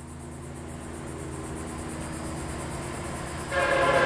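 A pair of EMD SD70M-2 diesel locomotives approaching, their two-stroke engines droning low and growing steadily louder. About three and a half seconds in, the locomotive horn starts sounding a loud chord for the grade crossing.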